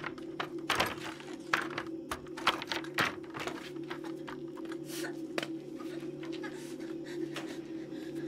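Scattered sharp knocks and scrapes of wooden boards being pushed and handled. They are thick for the first few seconds and thin out after about five seconds, over a steady low drone.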